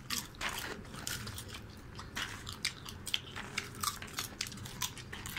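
A person chewing popcorn close to the microphone: many short, sharp crunches at an irregular pace as the popped kernels are bitten and chewed.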